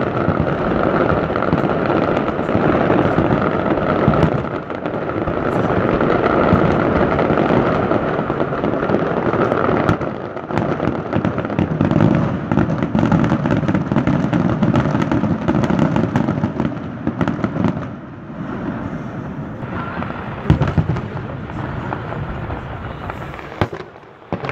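Fireworks display: a dense, near-continuous barrage of aerial shell bursts, the booms and crackle running together. It thins somewhat after about ten seconds and again in the last few seconds, where a few sharp single bangs stand out.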